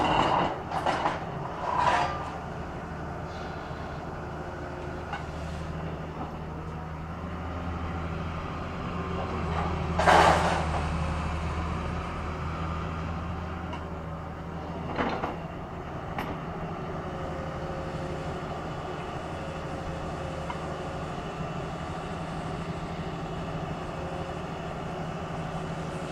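Caterpillar excavator's diesel engine running steadily while its demolition jaws break up a building. Brick and concrete debris crash and scrape several times in the first two seconds, the loudest crash comes about ten seconds in, and another about fifteen seconds in.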